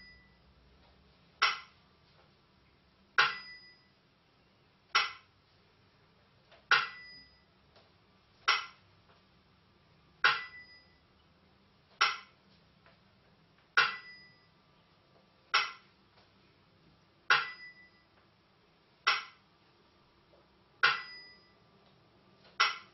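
Burmese si and wa beat: small hand cymbals and a clapper keeping time, thirteen even strikes about every 1.8 s. Every second strike rings briefly with a high metallic tone; the others are dry clicks.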